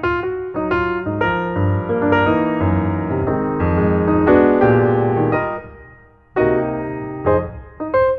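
Background piano music: chords and melody notes played at a moderate pace, fading briefly about six seconds in before the playing resumes.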